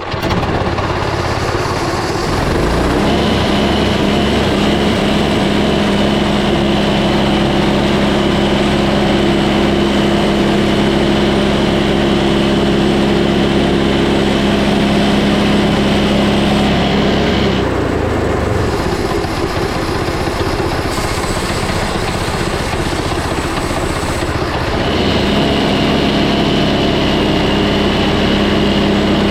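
Frontier OS18 portable band sawmill running with its engine at steady speed and a constant whine. The sound shifts for several seconds past the middle, then settles back to the same steady drone.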